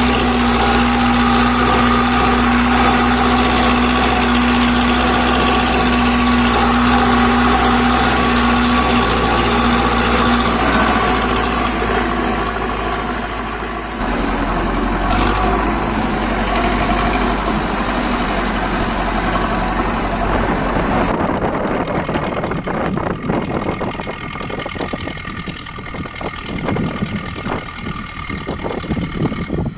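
Zetor 5745 tractor's diesel engine running with a steady note, which shifts about halfway through. About two-thirds in, the sound turns rougher, with irregular knocks and rattles.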